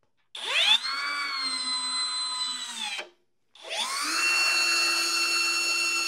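Hercules cordless hammer drill driving a 2.5-inch deck screw into wood on clutch setting four, in two trigger pulls about half a second apart. Each run is a motor whine that rises as it spins up, holds steady under load, then drops away as the trigger is released.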